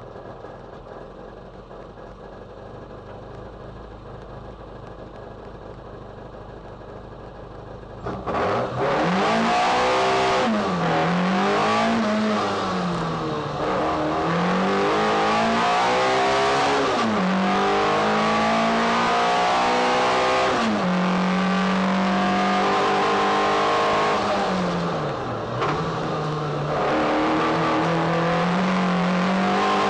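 Austin-Healey Sprite's four-cylinder BMC A-series engine heard from inside the stripped cockpit: idling quietly at first, then about eight seconds in launching hard into the hill climb run. It revs loudly, the pitch climbing and then dropping at each gear change or lift, several times over.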